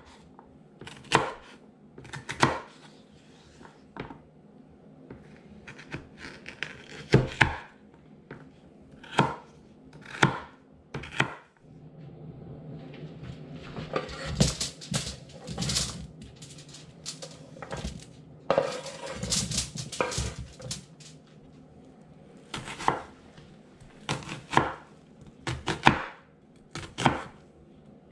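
Knife chopping vegetables on a wooden cutting board, single sharp strikes about a second apart. In the middle comes a longer stretch of scraping and crinkling as the diced carrots are pushed off the board onto aluminium foil, and then the chopping starts again.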